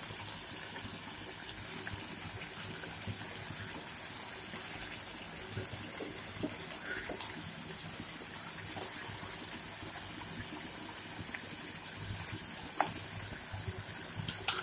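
Chopped tomatoes cooking in oil in a pan on the stove: a steady sizzling hiss, with a few light clicks and one sharper click near the end.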